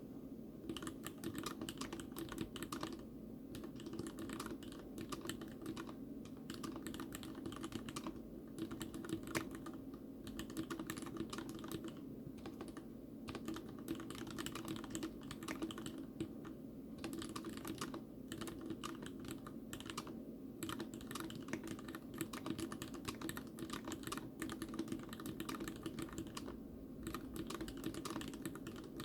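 Continuous typing on a custom TX87 tenkeyless mechanical keyboard with Cherry MX RGB Red linear switches on a stainless-steel plate. The switch sliders and springs are hand-lubed and the stabilizers greased. It is a fast, dense run of keystroke clicks with a few short pauses.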